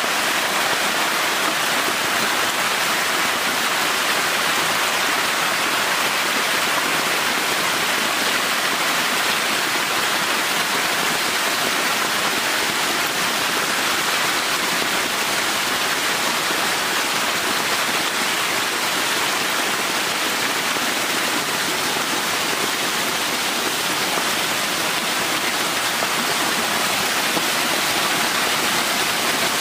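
Steady rushing and splashing of water in a concrete fish tank: water jetting in from inflow pipes, and densely stocked hybrid magur catfish thrashing at the surface as feed is scattered among them.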